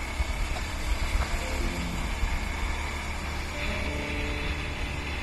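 Motorbike riding along a rough dirt road: a steady low rumble of wind and engine on the bike-mounted microphone, with small jolts from the bumpy surface.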